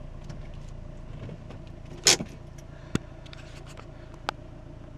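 Van cabin noise while driving: a steady low engine and road rumble. Sharp clicks and knocks cut across it, the loudest a short burst about two seconds in.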